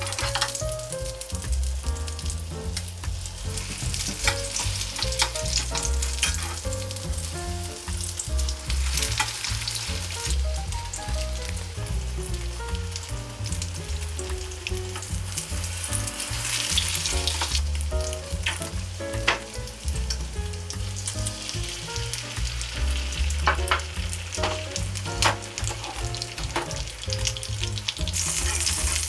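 Egg frying in an oiled pan with a steady sizzle. Frequent light clicks and scrapes of a utensil against the pan run through it.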